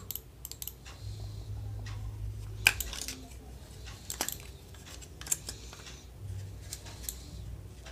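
Scattered sharp plastic clicks and scrapes as the battery cover of a Logitech wireless mouse is pried open and lifted off, with the loudest snaps about three seconds in and again around four and five seconds.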